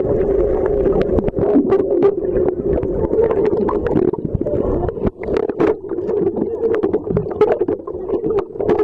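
Water heard from below the surface: a steady, muffled underwater rush with many scattered clicks and crackles.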